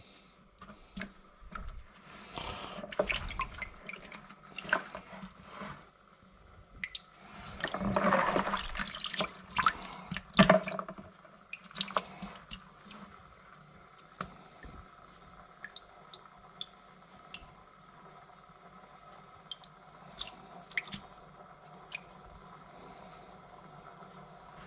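Water splashing and dripping as a hand scoops wild prawns out of a bucket of water and lets water and prawns fall back in. The splashing is loudest about eight to eleven seconds in, then thins to scattered drips.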